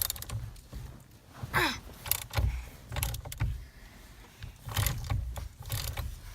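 Irregular metallic clicks and clinks with handling knocks as a wrench works at the steering wheel's 15/16 center nut.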